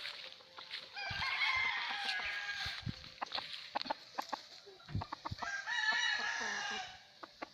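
Gamefowl roosters crowing: two long crows, each about two seconds, one starting about a second in and the other about five and a half seconds in, with scattered short clucks and knocks between them.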